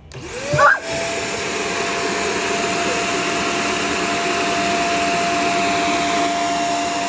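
Shark Stratos upright vacuum switched on: the motor spins up with a rising whine that levels off within about a second, with a short louder sound as it starts, then runs steadily with a high whine over a rush of air.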